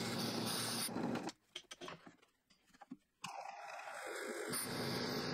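Drill press boring into plywood with a Forstner bit: steady motor and cutting noise for about a second, then a break of near silence, then drilling again for about two seconds.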